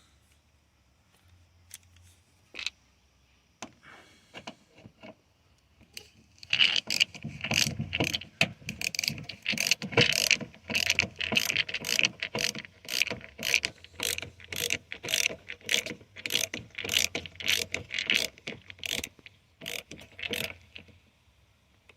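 A ratcheting screwdriver clicking steadily, about two to three clicks a second, as a door-panel screw is driven back in. It starts about six seconds in after a few faint clicks and stops shortly before the end.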